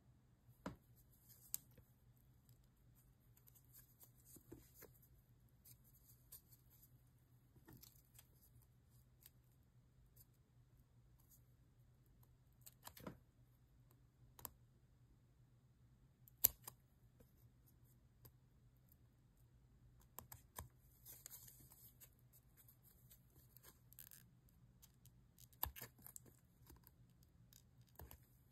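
Small scissors snipping around the edge of a leather cutout in short, faint bursts, with a few sharp clicks scattered through.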